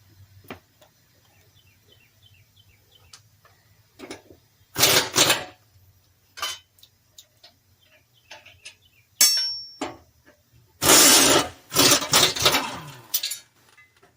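Pneumatic air ratchet run in short bursts to unbolt a mower-deck spindle: a brief burst about five seconds in and a longer one of about two seconds near the end, between light clinks and knocks of metal parts and tools.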